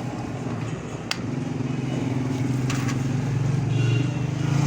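An engine running nearby, a low pulsing hum that grows louder toward the end, with one sharp click about a second in.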